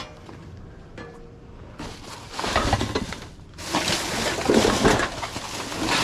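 Rustling and rummaging through junk in a dumpster: a few faint clicks, then from about two seconds in, louder, irregular noisy handling.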